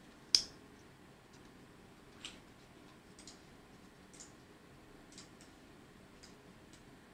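Ganzo folding pocket knife: one sharp, loud click about a third of a second in as the blade snaps open and locks, then several fainter clicks from handling the blade and lock.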